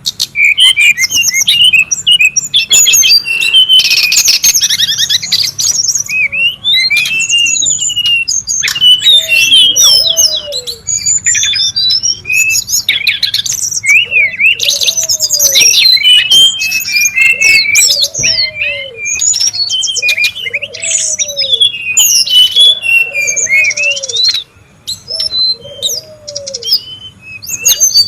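Brown-chested jungle flycatchers calling busily: fast chirps, rapid trills and short whistled glides, overlapping. From about a third of the way in, a lower arching note repeats about every two seconds beneath them.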